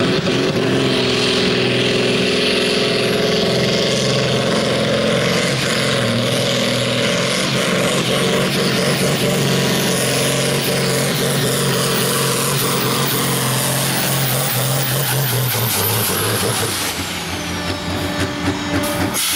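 Ford tractor's diesel engine at full load, pulling a weight-transfer sled, running steady and hard at high revs. Near the end the engine note drops and changes as the pull comes to a stop.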